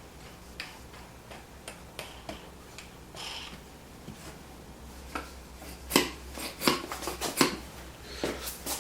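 Scattered light knocks and clicks of a wooden jig being handled, more frequent in the second half; the belt sander is not running.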